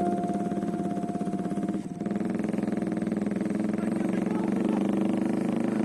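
Royal Enfield Bullet single-cylinder motorcycle engine running with a fast, even thump. A held musical tone fades out about two seconds in, where the sound briefly dips.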